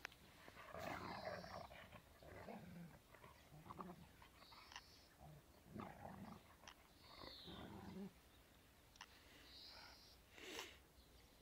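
Hovawart and English Setter puppy play-fighting: faint dog vocal sounds in irregular short bouts, some short and high-pitched, others lower.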